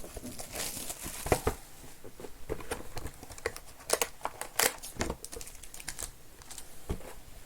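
Cardboard card boxes and sealed card packs being handled: crinkling and rustling, with many short clicks and taps.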